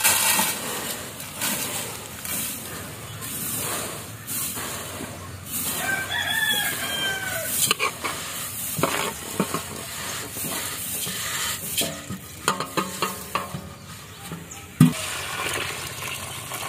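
Dry flattened rice (poha) poured by hand from a metal tray into an aluminium pot, a steady rustling hiss of falling flakes. A rooster crows once about six seconds in. Near the end there is a single sharp knock, then water is poured over the flakes.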